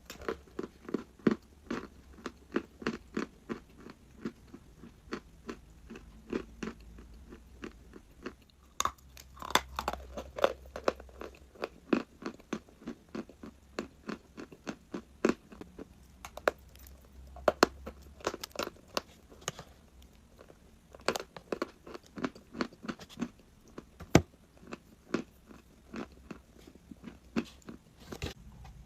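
Chalk being bitten and chewed close to the microphone: a steady run of sharp, dry crunches, a few a second, with a few louder bites along the way.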